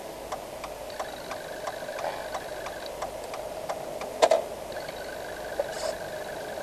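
Car turn-signal indicator ticking steadily, about three clicks a second, inside the cabin, with one louder knock about four seconds in.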